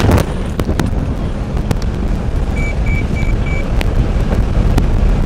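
Vehicle running fast on a rough dirt road, heard from inside the cabin: a steady low rumble with occasional knocks and rattles. About halfway through, four short high beeps.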